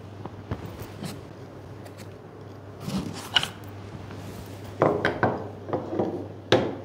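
Carbon-fibre detector enhancer tubes being handled and set down on a wooden tabletop: scattered light clicks and knocks, coming in little clusters about three seconds in and again about five seconds in, with a sharp click near the end.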